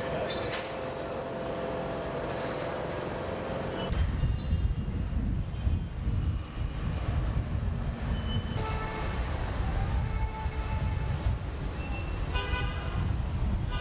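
Town street noise of passing traffic with car horns sounding now and then, clearest near the end. The background changes abruptly about four seconds in and again past eight seconds, where the footage is cut.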